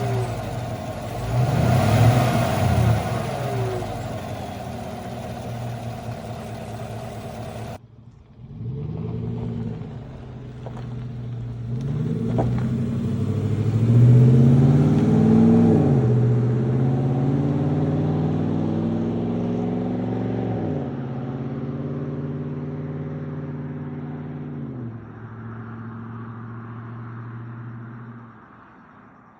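2018 Chevy Silverado 1500's engine blipped in several quick revs, each rising and falling back, with stretches of steady idle between. The sound breaks off abruptly about eight seconds in and picks up again with more revs, then idles and fades near the end.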